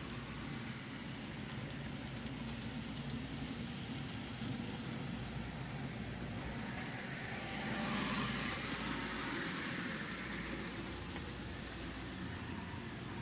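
Model train locomotives running on the layout's track: a steady electric motor hum with wheel rumble, growing louder about eight seconds in as a train runs close by.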